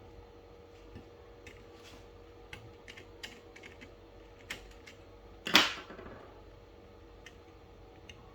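Scattered small clicks and taps of hands and tools working wires into a gas detector's terminal block, with one much louder sharp clatter about five and a half seconds in.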